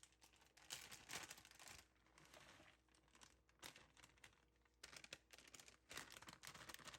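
Faint crinkling and rustling handling noises in short, irregular bursts.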